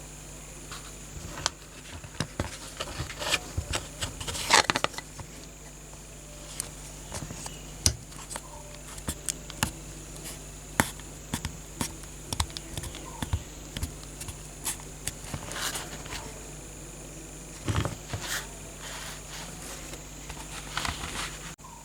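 Irregular small clicks, taps and short scrapes of hand work on a small die-cast metal toy car and its parts, over a steady faint hum.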